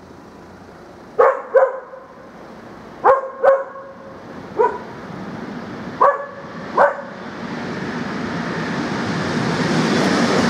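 A dog barking seven times, in ones and twos. From about seven seconds in, the rumble of an approaching regional train rises steadily.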